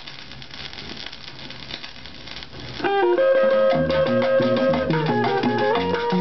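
A vinyl record playing on a turntable: the lead-in groove crackles and hisses under the stylus, then about three seconds in the music starts, a Colombian tune of plucked guitar over bass.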